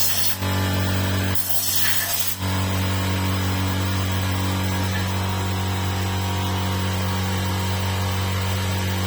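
Air compressor running with a steady hum, while an air blow gun hisses in two short blasts, once at the very start and again about a second and a half in, blowing leftover dust out of a disassembled sewage pump.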